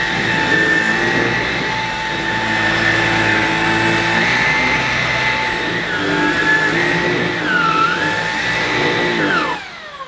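Bosch Unlimited BCS111GB cordless stick vacuum running on turbo mode over carpet: a steady motor whine that dips briefly in pitch a couple of times. Near the end it is switched off, and the whine falls away as the motor spins down.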